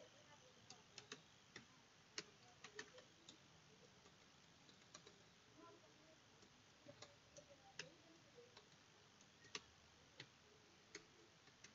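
Faint, scattered clicks of computer keyboard keys being typed, irregular and mostly a fraction of a second to a second or more apart, over near-silent room hiss.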